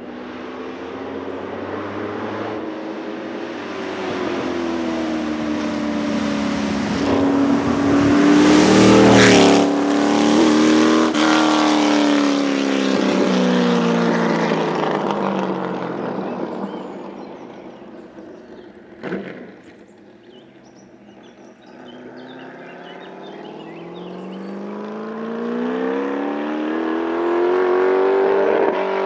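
Chevrolet 5.3-litre V8 of a 1965 Attila Mk7 race car accelerating hard uphill toward and past the listener. Its revs climb and drop again and again through the gear changes, it is loudest as it passes about nine seconds in, and then it fades away up the road. There is a single sharp crack a little before the quietest point, and engine sound builds again near the end.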